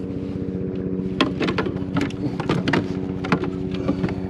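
A boat engine drones at a steady pitch. From about a second in, a dozen or so sharp, irregular knocks and clicks sound over it.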